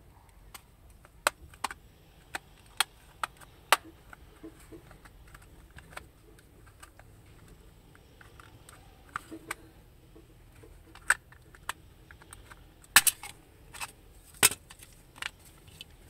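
Plastic case of a TV remote control being pried open, its snap-fit clips clicking and cracking as the halves come apart: a series of sharp single clicks, the loudest a few seconds before the end.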